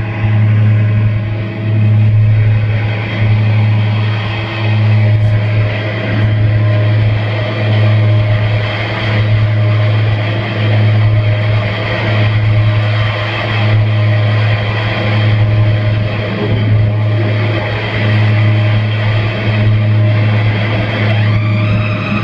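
Live harsh noise music: a loud, dense wall of distorted noise over a low droning hum that pulses in a steady rhythm, a little faster than once a second.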